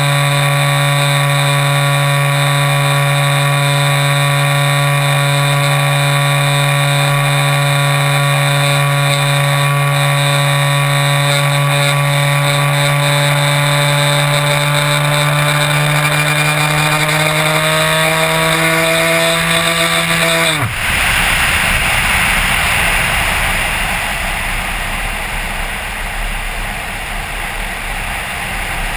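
Electric motor and propeller of a Multiplex Xeno RC plane running at steady throttle, heard close up from a camera mounted on the airframe. Its pitch rises slightly, then the motor cuts off suddenly about 21 seconds in, leaving the rush of wind over the gliding plane.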